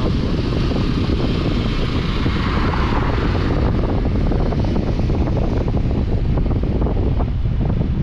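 Heavy wind buffeting the microphone of a camera riding in a moving car: a loud, unsteady low rumble with road noise beneath it, and a swell of higher hiss around three seconds in.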